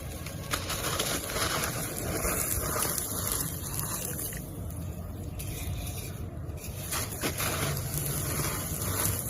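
Crumbled cement chunks being mixed with water: a steady, crunchy, gritty rustle.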